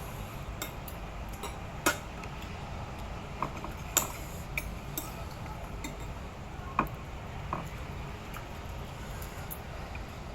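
Sparse, irregular small clicks and clinks of a meal being eaten from a plate, a few seconds apart, over a steady low background rumble.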